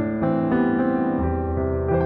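Background music played on a piano-type keyboard, a melody over sustained chords with new notes every half second or so.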